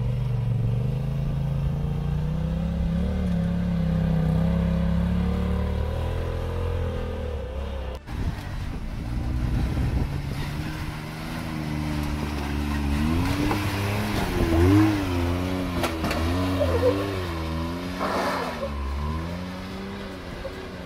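Side-by-side UTV engines working under load while crawling up slickrock ledges. First comes a fairly steady run with slowly rising pitch. After a cut about eight seconds in, a Can-Am Maverick X3's engine rises and falls in quick throttle blips as it climbs the rock steps.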